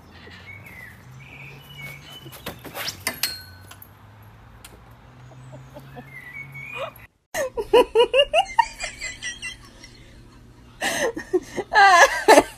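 Hearty human laughter in rapid loud bursts through the second half, after a quieter stretch with a few sharp knocks about three seconds in.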